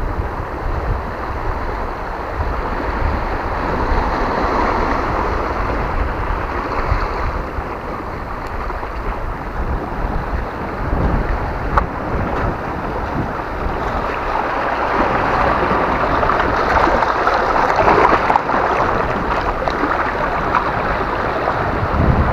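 Small waves washing in and out over a pebble and cobble shore, swelling louder a few seconds in and again through the second half, with wind buffeting the microphone.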